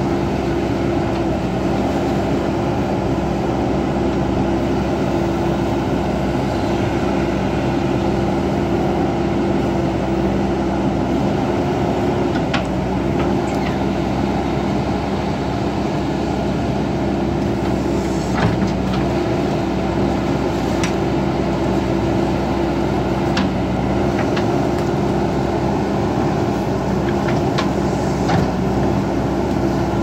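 JCB backhoe loader's diesel engine running steadily with a constant low hum while the machine works in mud, with a handful of sharp clanks scattered through the second half.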